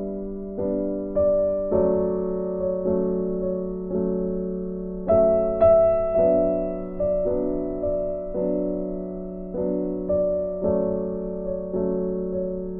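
Soft background piano music, slow notes struck one after another and left to ring.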